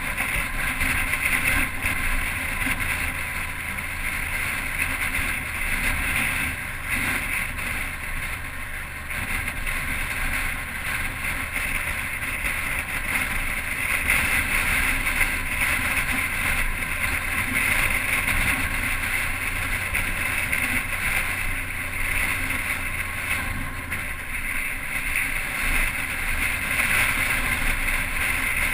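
Motorcycle engine running steadily on a downhill ride, heard from the bike-mounted camera, with wind rushing over the microphone.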